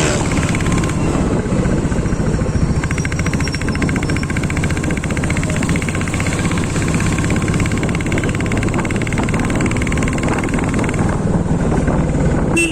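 Royal Enfield Classic 350 (2022, BS6) with its 349 cc single-cylinder engine running steadily through the stock exhaust, in an even beat of firing pulses. A horn starts sounding right at the end.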